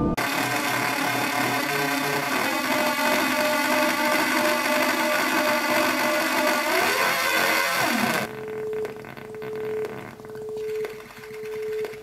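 Cat Full of Ghosts Hell Synth, a palm-sized DIY noise synthesizer running its Z-Synth program, played by turning its knobs: a dense, noisy, glitchy drone of many tones with a pitch sliding down. About eight seconds in it changes abruptly to a single pulsing tone that swells and cuts off about once a second.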